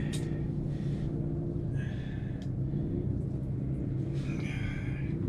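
A steady low mechanical hum, with two brief higher squeals about two and four and a half seconds in.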